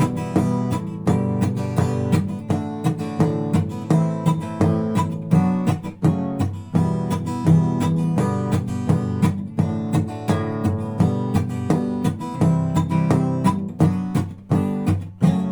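Acoustic guitar strummed in a quick, even rhythm of chords, with knocks on the guitar's body worked into the strumming pattern.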